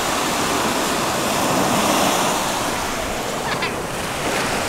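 Small sea waves washing up onto a sandy beach: a steady rush of surf that swells a little about halfway through.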